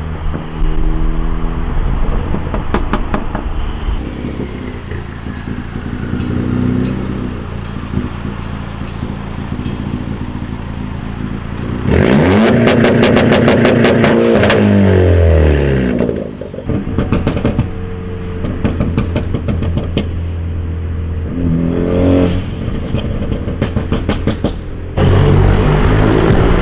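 Ford Focus ST's turbocharged engine with a pop-and-crackle exhaust tune, running and revving with bursts of sharp exhaust pops and crackles. About halfway through it gets much louder for a few seconds, its pitch climbing and then sinking, and it swells again near the end.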